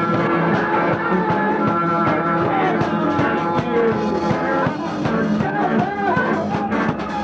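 A rock band playing: guitar over a steady drum beat.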